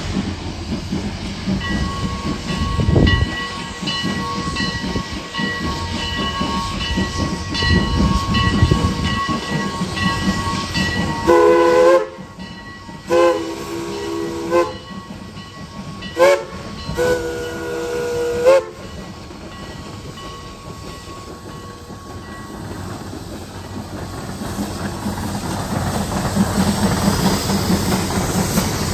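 Steam locomotive running with steam hiss and rumble. About halfway through, its chord steam whistle sounds four blasts, long, long, short, long: the grade-crossing signal. Near the end the running noise grows louder again.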